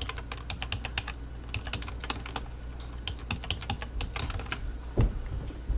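Typing on a computer keyboard: runs of quick keystrokes with short pauses between them, and one louder knock about five seconds in.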